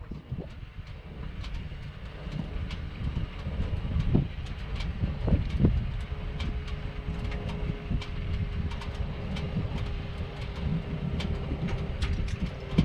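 Wind buffeting the microphone, an uneven low rumble, with scattered light clicks and knocks.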